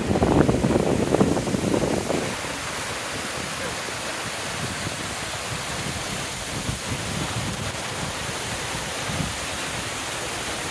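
Water rushing down a lakeside overflow channel, mixed with wind on the microphone. Loudest for about the first two seconds, then a steady rushing hiss.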